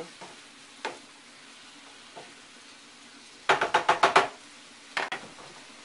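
Wooden spatula stirring sliced mushrooms and vegetables in a frying pan, knocking against the pan once under a second in, in a quick run of knocks about three and a half seconds in, and twice just after five seconds. Under it, a faint steady sizzle of the vegetables sautéing in oil.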